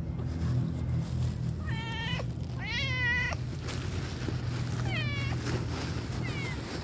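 A tabby-and-white cat meowing four times, the second meow the longest and loudest, over a steady low rumble.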